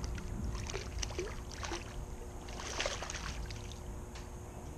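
A hooked fish thrashing at the water surface as it is played in, a run of small irregular splashes with the biggest flurry a little before three seconds in.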